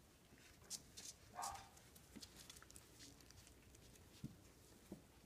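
Near silence, with a few faint, scattered taps and scuffles from puppies moving about on a tile floor and one brief faint squeak about a second and a half in.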